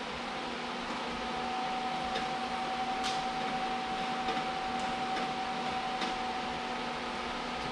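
Steady machine hum with a thin steady tone coming in about a second in, and a few faint clicks as the steel exhaust pipe is shifted by hand on its hangers.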